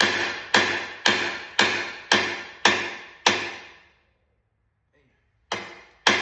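Hammer blows on a metal wheel rim, about two a second, each ringing out and fading: the bent, dented rim being hammered back into shape. Seven blows, a pause of about two seconds, then two more near the end.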